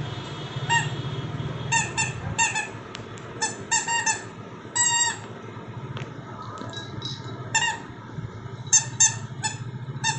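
Yellow rubber squeaky toy squeaking again and again as a puppy chews it: short high squeaks in quick bunches, with one longer squeak about five seconds in.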